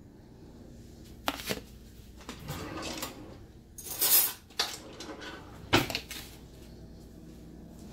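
Kitchen clatter of dishes being handled: a few sharp knocks and rattles, with the loudest short burst about four seconds in and a last knock near six seconds.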